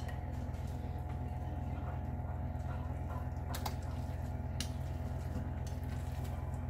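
Steady low hum, with a thick chicken-and-biscuit mixture being scraped from a glass mixing bowl into a glass baking dish: a few soft squishes and a couple of faint clicks of the spatula against the glass about halfway through.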